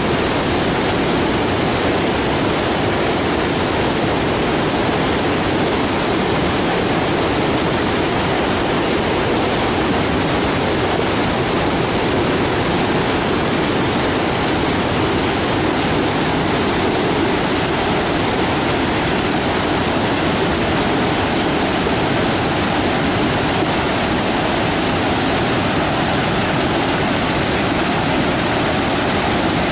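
Waterfall rushing steadily: an even, unbroken noise of falling water, loudest in the low-middle range, with no change in level.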